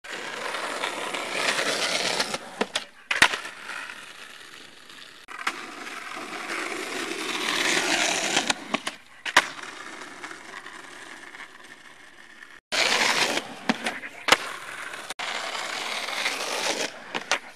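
Skateboard wheels rolling on asphalt, a rush that swells and fades, broken by about ten sharp clacks of the board hitting the road. The sound cuts in and out abruptly between several short clips.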